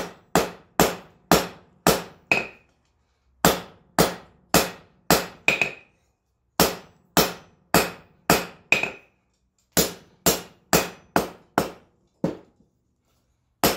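Hand hammer striking hot 5160 spring steel on an anvil: bursts of about five blows, roughly two a second, with short pauses between, some blows leaving a brief ring. The taper of a punch is being forged from faceted toward round.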